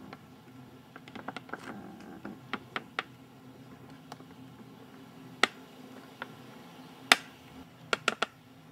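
Irregular sharp clicks and snaps over a faint steady hum, with two louder snaps about five and seven seconds in and a quick cluster near the end.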